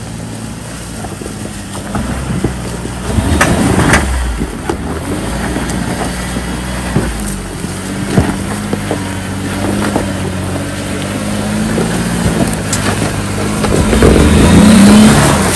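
Jeep Wrangler Rubicon engine running at low revs as it crawls over rock ledges, with scattered knocks and scrapes of tyres and underbody on rock. Near the end the engine pitch rises and gets louder as it works up a ledge.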